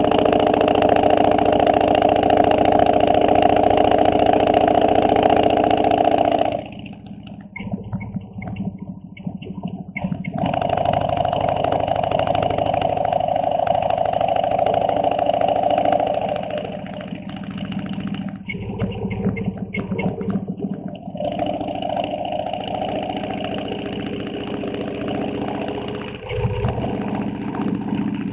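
A Harley-Davidson motorcycle engine running at road speed, heard from a camera mounted on the bike. It is loud for the first few seconds, eases off about a third of the way in, and comes back up twice more, with quieter stretches between. A short low thump comes near the end.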